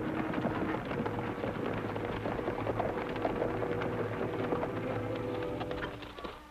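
Horses' hooves clattering at a run in a dense, steady patter, with a few held notes of background score underneath; the clatter fades near the end.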